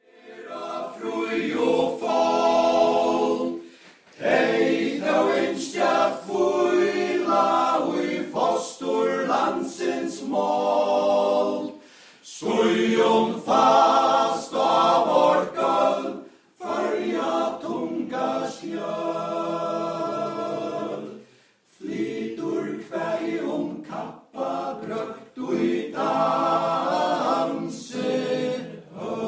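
Men's choir singing a cappella, in phrases broken by short pauses.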